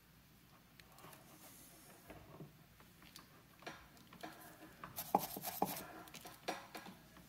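Faint clicks and rubbing as the soldering iron and tools are handled on a workbench, with a cluster of louder sharp clicks about five seconds in.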